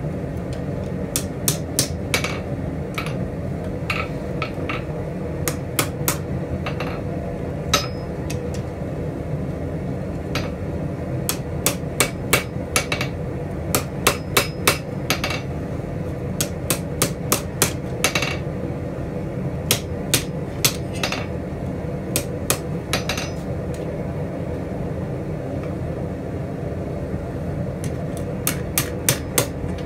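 Hand hammer striking a red-hot steel spatula blade on an anvil, in irregular runs of sharp blows with short pauses between, over a steady low hum.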